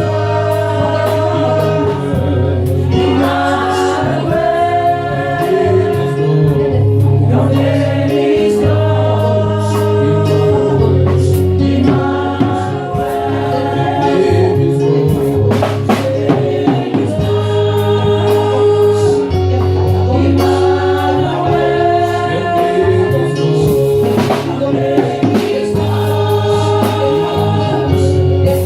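Gospel music: a choir singing over a steady bass line and drums.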